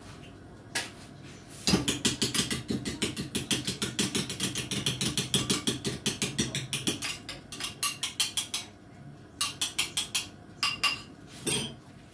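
Gas stove's electric igniter clicking rapidly, about six sharp clicks a second, with a low steady rush of gas under it. The clicking then comes in a few shorter bursts, with one louder click near the end.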